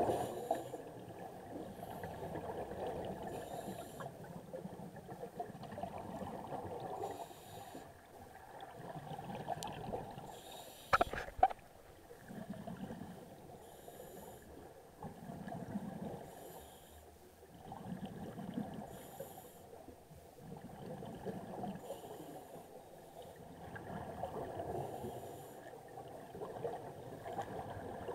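Scuba regulator breathing heard underwater: a hiss on each inhale and a gurgling rush of exhaust bubbles, repeating every few seconds. A sharp double knock comes about eleven seconds in.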